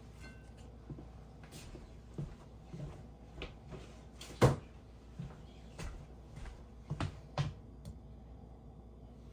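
Scattered knocks and light clatters of things being handled, with one sharp, loud knock about four and a half seconds in and two more knocks around seven seconds.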